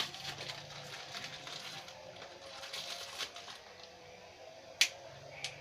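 Light rustling and small clicks of a Pop Mie instant noodle cup and utensil being handled, with two sharp clicks near the end.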